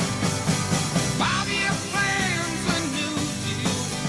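Background music: a rock-style song.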